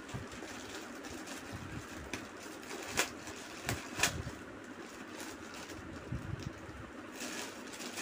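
Clear plastic bag crinkling as small ceiling-fan parts are handled inside it, with a few sharp clicks of the parts knocking together about three and four seconds in.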